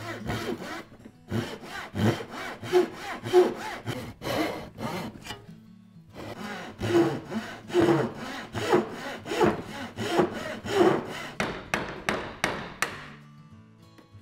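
Hand saw cutting across a wooden boat stringer to make a notch for a frame, in two runs of back-and-forth strokes with a short pause between them. Near the end the strokes become short and quick as the cut finishes.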